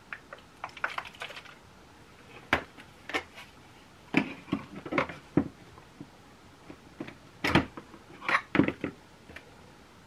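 Irregular clicks, taps and knocks of hard plastic as the body and suction nozzle of a Kärcher WV 2 window vacuum are handled and fitted together on a windowsill, with the motor off; the loudest knock comes about seven and a half seconds in.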